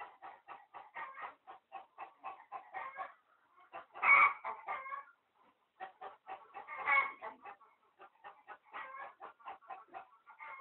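Chickens clucking in a quick run of short notes, about four or five a second, with two louder calls about four and seven seconds in.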